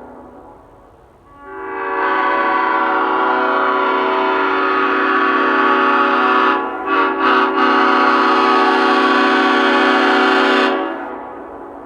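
Leslie five-chime air horn blowing a long chord of several steady notes, starting about a second and a half in. The sound stutters three times about midway, then the blast ends with a short fading ring near the end.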